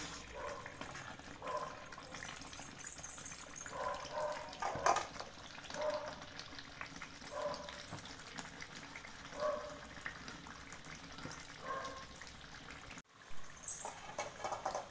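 Thick coconut-milk beef curry simmering in a wok over low heat, bubbles plopping every second or two, being reduced until the oil separates from the sauce. One sharp knock about five seconds in.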